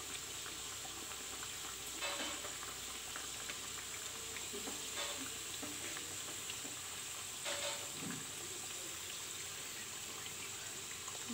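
Puffed-up kachoris deep-frying in refined oil in a kadai over a low flame: a steady sizzle. A few brief louder strokes come about two, five and seven and a half seconds in, as a slotted wooden spatula works in the oil.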